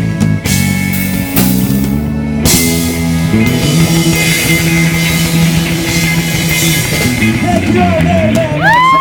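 Live rock band playing: electric guitar chords over bass and drum kit. Near the end a few loud, high rising-and-falling whoops from voices come in over the music.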